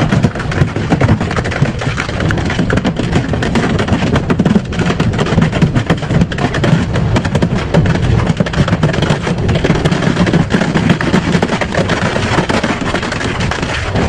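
Double-shaft shredder's hooked cutter teeth tearing and crushing a rigid plastic casing: many sharp cracks and snaps over a steady low rumble from the machine.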